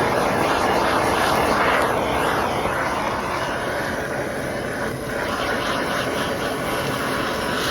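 Handheld MAP gas torch flame blowing steadily against a steak as it is seared, the flame moved around over the meat.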